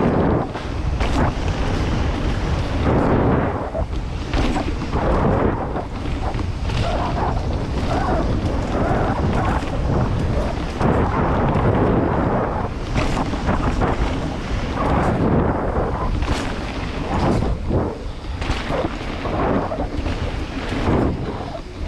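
Wind buffeting a mountain bike rider's camera microphone at speed, over a steady rumble of the bike on rough dirt trail with frequent knocks and rattles from bumps and landings.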